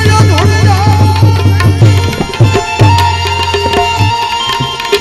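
Tabla playing a steady devotional rhythm with deep, ringing bass strokes and sharp treble strokes, under a held melodic line, in the instrumental gap between sung bhajan verses. The bass strokes break off briefly twice, near the middle and near the end.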